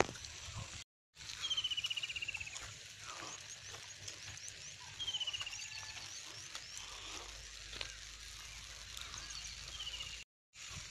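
Birds calling in the open: a rapid trill falling in pitch, about a second long, comes three times, about 1.5 s in, around 5 s and briefly near the end, with small high chirps between.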